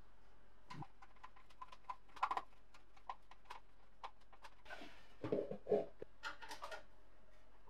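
Irregular light clicks and taps of small parts and tools being handled, with a few duller, louder knocks about five to six seconds in.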